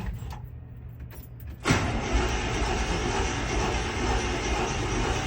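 1979 International truck engine firing up suddenly about a second and a half in, then running steadily through its dual exhaust on a cold start.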